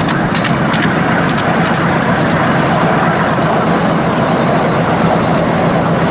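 Ride-on small-gauge railway train running steadily along the track, its engine giving a steady hum, heard on board; a few light clicks in the first second and a half.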